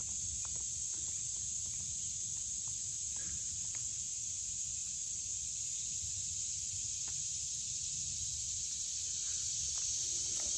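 Steady high-pitched insect chorus, unbroken and even in level, over a low rumble with a few faint clicks.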